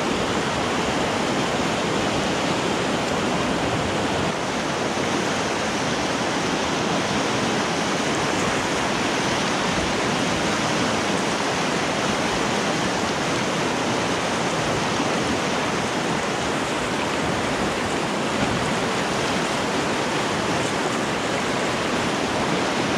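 Whitewater of a river rapid rushing steadily and loudly, heard close up from a kayak sitting in the rapid.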